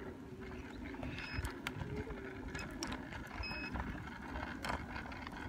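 Steady low rumble of a hoverboard ride: the wheels rolling over the ground, with wind buffeting the phone's microphone and a few faint clicks.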